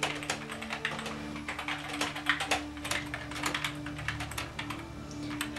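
Typing on a computer keyboard: fast, irregular key clicks throughout, over faint background music of long held notes.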